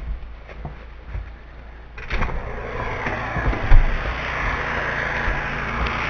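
A few light knocks and footsteps, then about two seconds in a door opens and a steady rushing outdoor noise takes over, with heavy low thumps on the microphone.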